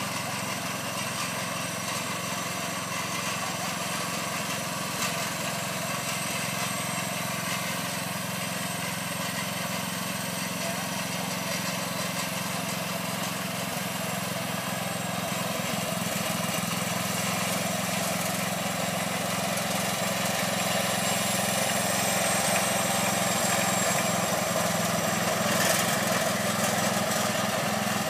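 John Deere garden tractor engine running steadily as the tractor drives along with a dump cart in tow, getting gradually louder in the second half as it comes closer.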